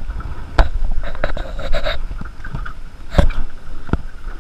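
Sharp knocks and rattling ticks from a spinning rod and reel being worked against a hooked barracuda. The three loudest knocks come about half a second, three seconds and four seconds in, over a low rumble of wind on the microphone.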